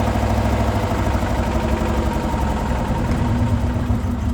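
Chevy HHR's four-cylinder engine idling with a fast, even knocking: rod knock from a worn connecting-rod bearing.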